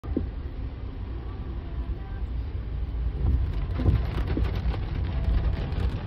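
Steady low rumble of a car driving, heard from inside the cabin, with rain tapping on the windscreen that grows busier from about halfway.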